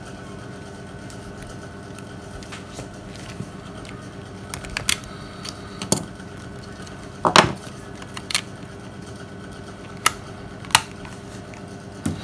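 Scattered plastic clicks and knocks as a Nokia 3110 classic is handled with its back cover off, about eight sharp ones from about four seconds in, the loudest near the middle. A steady hum runs underneath.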